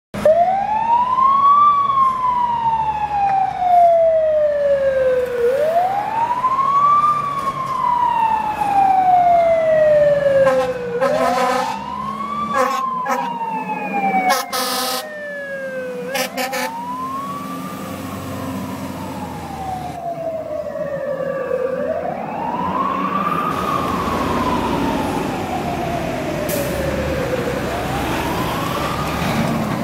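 Siren of a 1991 Spartan/Saulsbury heavy rescue fire truck sounding a repeated wail, each quick rise and slower fall taking about five and a half seconds. Several air-horn blasts sound around the middle.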